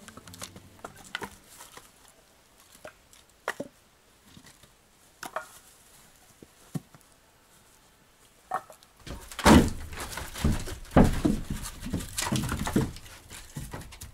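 Scattered light knocks and clicks, then a run of louder, heavy thumps and bumps starting about nine seconds in and lasting about four seconds.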